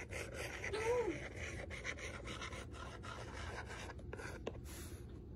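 An Apple Pencil's fine-point replacement tip tapping and scratching across an iPad's glass screen in short, irregular strokes as a word is handwritten. A brief rising-and-falling tone sounds about a second in.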